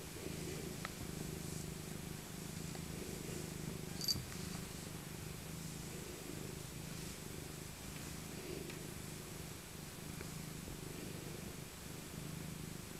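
An elderly tabby cat purring steadily while being stroked. There is one brief sharp click about four seconds in.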